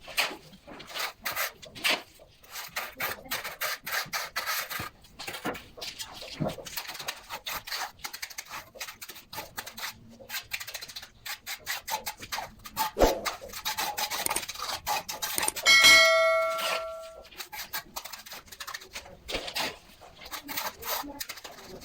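Repeated short scraping and rubbing strokes, with one ringing clang about sixteen seconds in that sounds for about a second and is the loudest thing heard.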